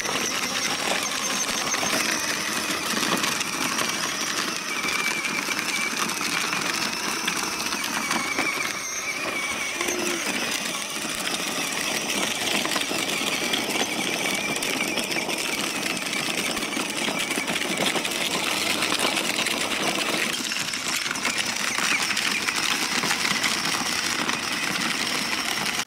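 Small electric motor and plastic gearbox of a battery-powered children's ride-on motorcycle whirring steadily as it drives, with its hard plastic wheels rolling over gravel.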